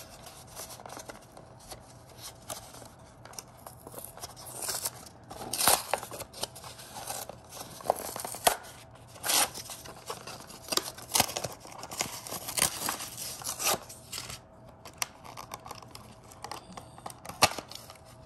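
Stiff clear plastic blister packaging crackling, crinkling and tearing as it is opened, in irregular sharp clicks and short bursts, quieter at first and busiest in the middle.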